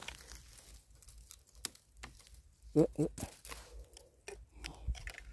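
Rustling and crackling of dry bamboo leaves and stems as wild bamboo shoots are handled and broken off, with scattered sharp snaps and clicks. A short vocal sound just under three seconds in is the loudest moment.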